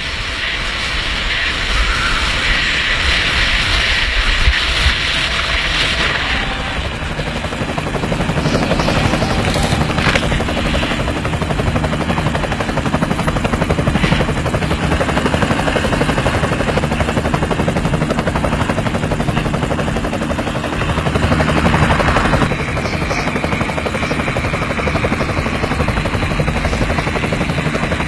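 Skis hissing over slushy snow for the first several seconds, then a helicopter's rotor chopping steadily overhead as the skier is towed across water, with the skis hissing on the water beneath.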